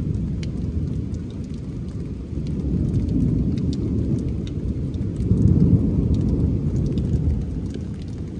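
Rolling thunder rumbling low, swelling to its loudest a little past halfway, over steady rain with scattered sharp drops.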